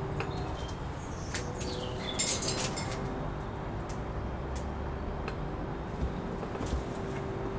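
African grey parrot giving a few short chirps and whistles about two seconds in, with scattered clicks, over a steady low hum.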